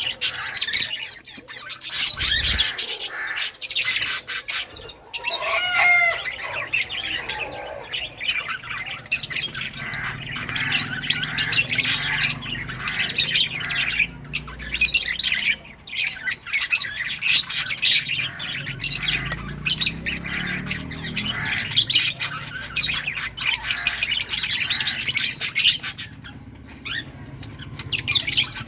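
Pet lovebirds chirping and squawking in rapid, overlapping high-pitched calls, with the odd short pitched note, easing off briefly near the end.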